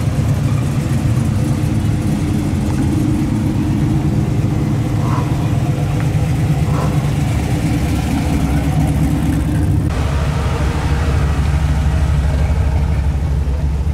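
Classic American V8 cars rolling past at low speed one after another, a deep, steady exhaust rumble. About ten seconds in, the rumble gets deeper and heavier as a pickup passes close by.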